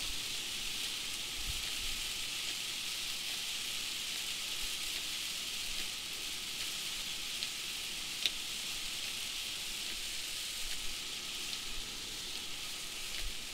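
Heavy rain pelting the windshield and roof of a moving vehicle, heard inside the cab: a steady hiss with a few sharper ticks of individual drops.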